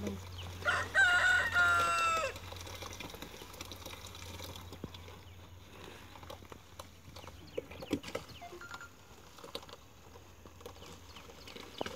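A rooster crows once, about a second and a half long near the start, its call dropping in pitch at the end. After it come faint rustling and small knocks as jaggery is tipped from a plastic sack into a plastic drum.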